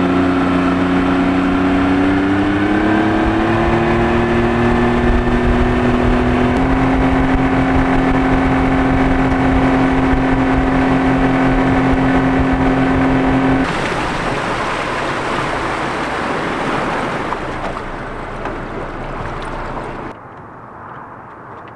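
Boat motor speeding up over the first few seconds, then running steadily at speed. About two-thirds of the way through, the engine note drops away, leaving a rush of water and wind that fades, and it goes much quieter near the end.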